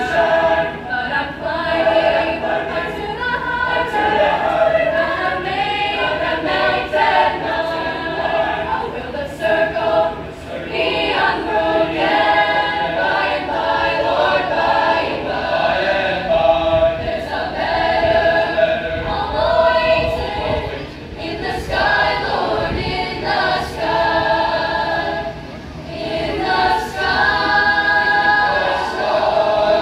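High school concert choir singing together in continuous phrases, with short breaks between them.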